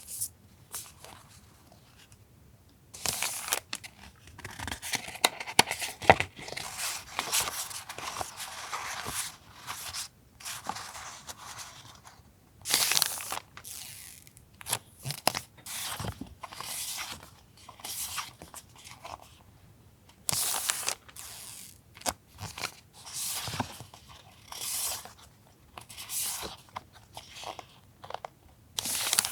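Paper journaling supplies and their wrapping handled and unpacked by hand: irregular rustling, crinkling and tearing in bursts, with a longer stretch of continuous rustling a few seconds in.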